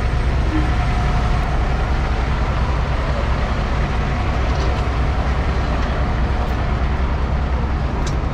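FDNY ladder truck's diesel engine idling while parked, a loud steady low rumble.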